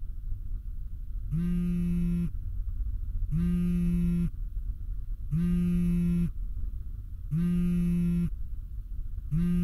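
Mobile phone alerting an incoming call: a low, buzzy tone about a second long, repeating every two seconds.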